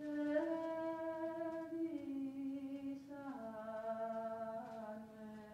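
A lone voice singing slow, long-held notes without accompaniment, rising slightly at first and then stepping down in pitch, settling on a low held note about three seconds in.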